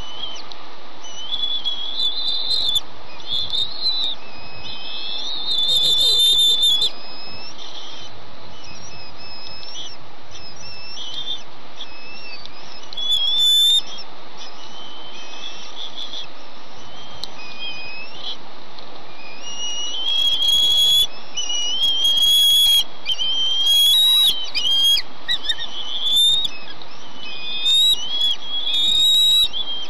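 Bald eaglets giving high, thin whistled begging calls for the adult's food: short wavering notes in clusters, sparse at first and almost continuous over the last third, over a steady hiss.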